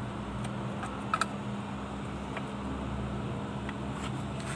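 A few sharp metallic clicks from a hand tool being worked at a bolt of the propeller shaft's bearing housing, the loudest a quick double click about a second in. Under them runs a steady low machine hum.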